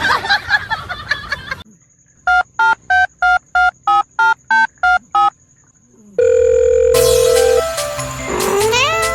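Touch-tone telephone keypad dialing: ten short two-tone beeps, about three a second, each a different digit, followed by a steady tone of about a second and a half. Background music plays before the beeps and comes back near the end.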